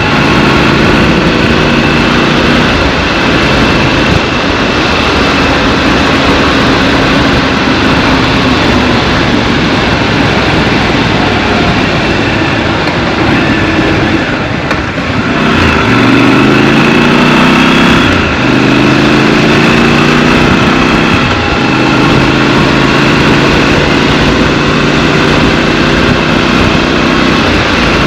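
Scrambler motorcycle engine running under way, with wind noise over the microphone. About halfway it eases off briefly, then accelerates with revs rising, dropping at an upshift a couple of seconds later and climbing again.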